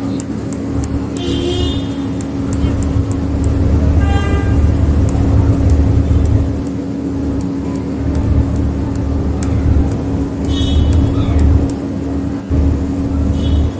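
A motor vehicle running, with a steady low rumble and a constant hum, and a few brief horn toots, the clearest about four seconds in.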